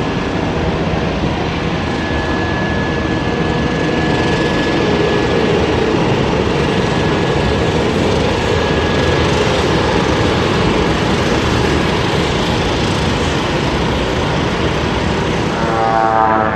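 Pratt & Whitney Canada PT6 turboprop of a Cessna 208B Grand Caravan EX running as the aircraft taxis: a steady, high turbine whine over loud propeller and engine noise.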